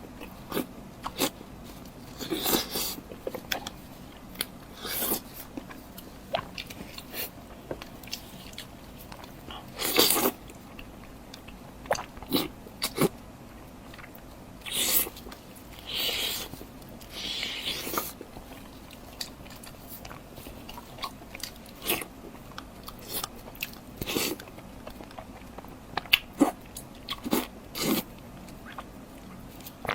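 Close-miked eating: a person biting and chewing food, with irregular short crunches and clicks spread unevenly throughout.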